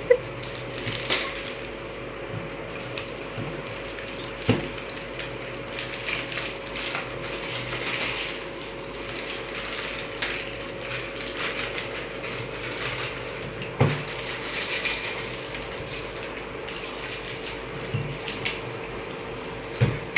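Plastic snack packets crinkling and food crunching as several people eat at a table, with a few sharp knocks of glasses and bottles set down on the tabletop.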